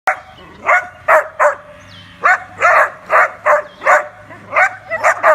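A dog barking over and over, about a dozen short, sharp barks in quick, irregular succession.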